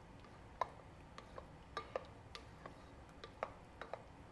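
Spatula folding a ricotta and egg mixture in a mixing bowl: faint, irregularly spaced ticks and taps as the spatula knocks and scrapes against the bowl.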